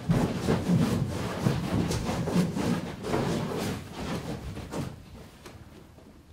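Scraping, rubbing and knocking as a large puppet figure hung on ropes is handled and lowered over a wooden gallery rail, dying down near the end.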